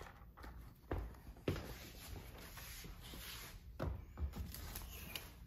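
Faint footsteps and handling of a removed e-bike battery pack, with a few soft thumps as it is carried and set down on a wooden workbench.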